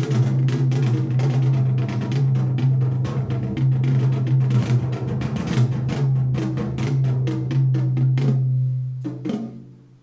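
Drum-heavy music with a prominent bass part played through Canton Karat 100 three-way closed compact loudspeakers, picked up in the room. The track fades out near the end to near silence.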